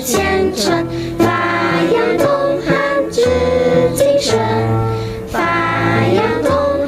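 A school song being sung by a choir of voices over instrumental backing, with held melody notes changing every half second to a second over a steady bass line.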